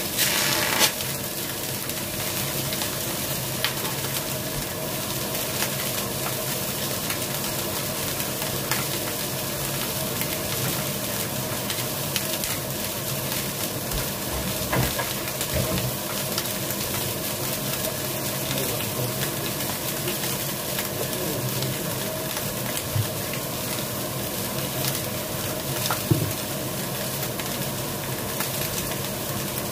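Whole mackerel sizzling steadily on a hot stainless steel griddle pan, with a louder burst of sizzle in the first second as a fish is laid on, and a few faint clicks.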